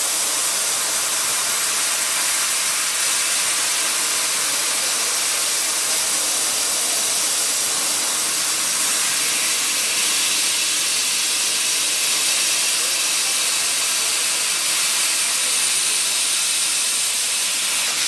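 CNC laser cutting head cutting 20 mm brass plate: a steady, loud hiss of the assist-gas jet blowing molten metal through the cut.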